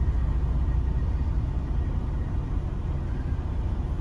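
Diesel semi-truck engine running steadily as the rig reverses slowly, a low, even drone.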